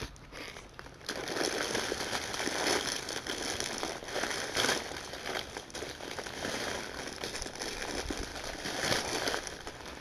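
Continuous rustling and crackling handling noise, starting about a second in.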